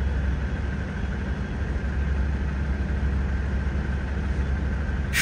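Steady low rumble of heavy engines idling, with a faint steady high whine over it.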